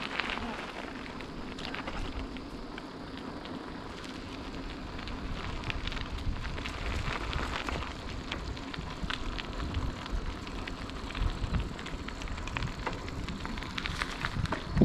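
Bicycle tyres rolling over rough, gritty old asphalt: a steady crackling rolling noise, with irregular low wind rumble on the action-camera microphone.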